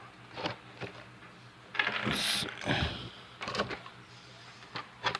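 Handling noises: a series of separate clicks and knocks, with a burst of rustling and scraping about two seconds in.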